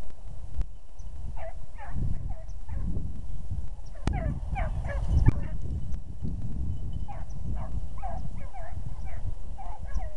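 Pack of beagles baying while running a rabbit's trail: many short, overlapping yelping cries that start about a second in and carry on, over a low rumble.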